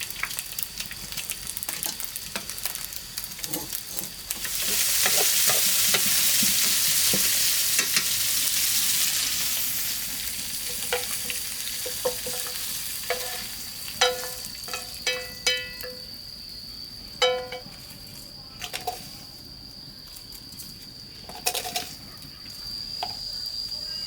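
A loud hiss lasting about five seconds, like sizzling or running water, then a run of sharp clinks, each with a short ring, as of hard objects knocking together. A steady high insect trill runs underneath.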